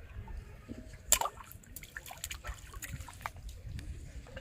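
Small water sounds: light splashes and drips, with a sharp click about a second in, over a low rumble.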